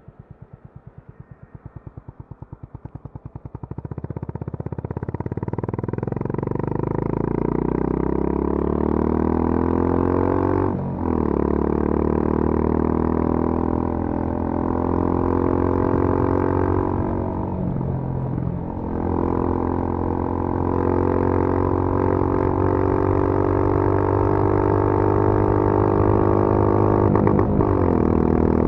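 Honda CB350 RS's single-cylinder engine through its stock exhaust, heard onboard at full throttle. It thumps slowly at low revs, then climbs steadily in pitch and runs hard, with three brief dips where gears are changed.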